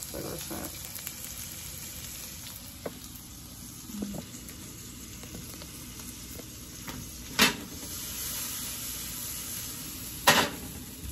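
Shrimp sizzling steadily in a nonstick frying pan over a gas burner, stirred and tossed with a fork. Two sharp knocks stand out in the second half, about three seconds apart.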